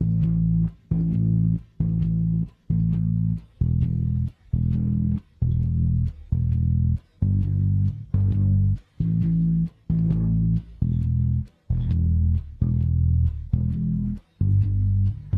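Isolated electric bass guitar track playing a steady line of separate, evenly spaced low notes, each stopped short with a brief gap before the next.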